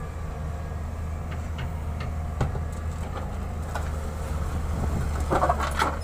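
Diesel engines of a wheeled excavator and a dump truck running with a steady low drone, with scattered knocks of rock and a louder clatter of rock near the end.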